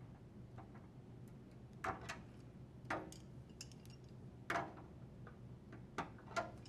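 About five sharp clicks and knocks, spaced irregularly, as pliers squeeze the gray plastic tabs of a dryer door latch and push the latch down through the door panel.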